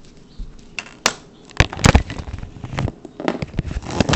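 Cardboard blades being handled for measuring: a series of sharp knocks and crinkly rustles, the loudest two close together near the middle.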